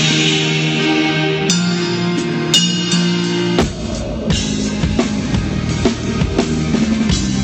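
Rock band playing live at a sound check, heard through a phone's microphone: held guitar chords, then drums and bass come in about three and a half seconds in and keep a steady beat.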